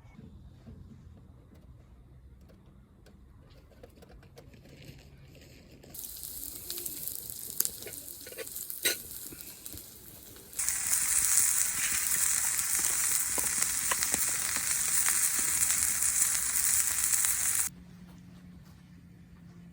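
Food frying in a hot pan: a moderate sizzle with a few clicks, then, after a cut, a much louder, steady sizzle for about seven seconds that stops suddenly.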